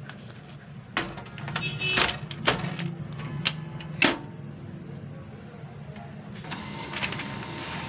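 Hard plastic clicks and knocks as a refilled HP 36A toner cartridge is seated in an HP laser printer and the top cover is shut, the loudest knock about four seconds in. About two seconds later the printer's motors start with a steady whir as it begins to run.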